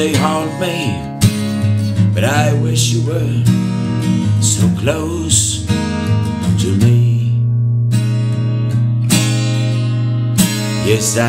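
Acoustic guitar strummed in chords, with a man singing over it for roughly the first half. After that the guitar plays on alone.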